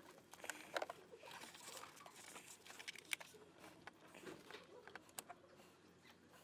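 Faint scattered clicks, taps and rustling as a hand works a new steering-shaft bolt into the steering shaft coupling's clamp, with a couple of sharper metal clicks.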